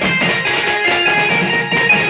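Indian street-band music: stick-beaten drums pounding a fast, dense rhythm under a loud lead melody line.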